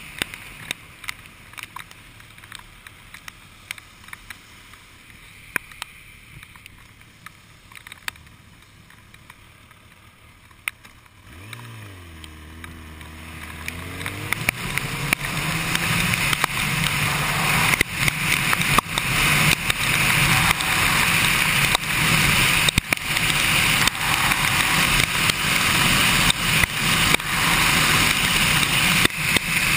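Kawasaki Ninja sportbike's inline-four engine ticking over quietly, then revving up as the bike pulls away about eleven seconds in. After that, loud steady wind rush and tyre hiss on the wet road build as it gathers speed. Sharp ticks throughout from raindrops striking the camera.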